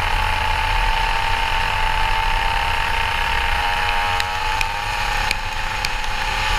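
Racing go-kart engine running at high revs, heard from on board: one strong steady engine note whose pitch sags gently, then dips and climbs again in the second half. A few sharp clicks are heard near the end.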